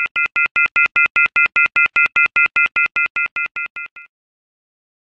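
Electronic intro sound effect: a rapid train of short, even beeps, about five a second, each a chord of three high tones, like a phone ringtone. It swells in, then fades and stops about four seconds in.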